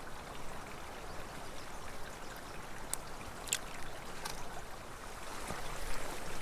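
Steady flowing water of a small mountain creek, with a few faint brief clicks around the middle.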